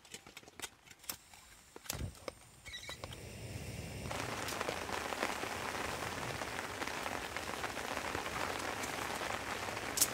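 A few light clicks and knocks of camp gear being handled, then steady rain hiss from about four seconds in, with one sharp click near the end.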